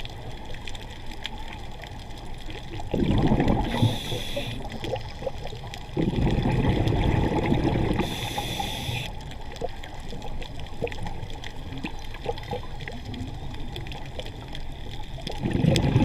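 Scuba regulator heard underwater: exhaled breaths bubbling out in a low rumble about 3 s in, again about 6 s in and near the end, with a short hiss of an inhaled breath after each of the first two. Faint crackling of small clicks runs underneath.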